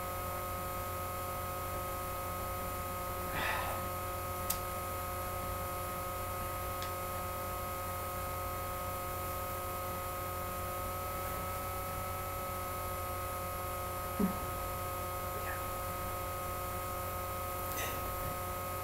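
Steady electrical hum and buzz on the recording, with a few faint fabric rustles and a short soft thump as a T-shirt is pulled off and handled.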